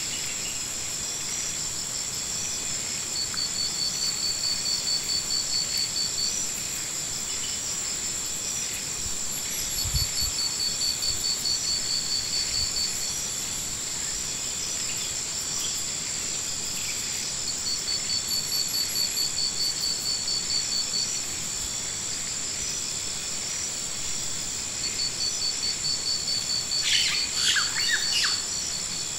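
Outdoor summer insect chorus: a steady high-pitched drone with a pulsing call that swells up for a few seconds about every seven seconds. A few short chirps come near the end.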